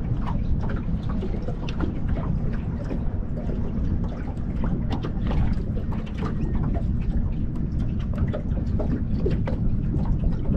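Wind buffeting the microphone as a steady low rumble, with small waves lapping and slapping irregularly against the boat's hull.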